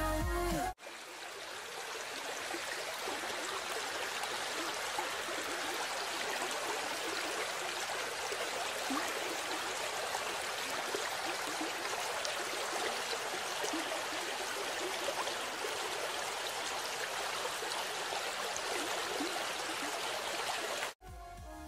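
Shallow, fast-flowing mountain river rushing over stones, heard close to the water's surface as a steady rush of water. Music cuts off just under a second in.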